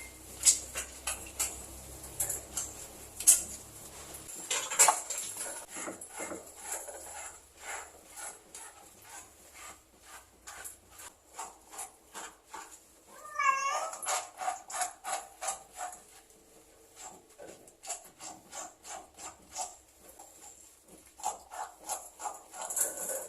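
Domestic cat meowing several times, with one long wavering yowl about halfway through, over a steady run of quick soft clicks.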